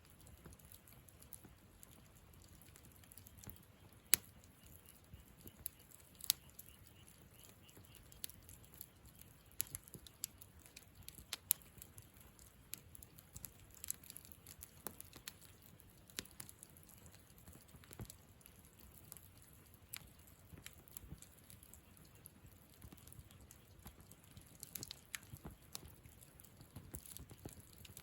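Wood campfire burning, crackling with irregular snaps and pops over a low steady hiss, the sharpest pop about four seconds in.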